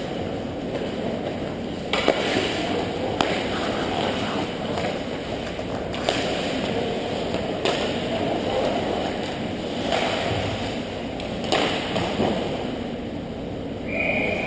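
Ice hockey game on an indoor rink: skates scraping the ice over a steady arena rumble, with several sharp clicks of sticks and puck striking during play.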